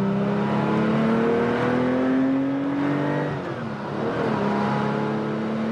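1979 Porsche 911 SC's air-cooled 3.0-litre flat-six pulling under acceleration, its pitch climbing steadily. About three seconds in the pitch drops, then the engine pulls again, slowly rising.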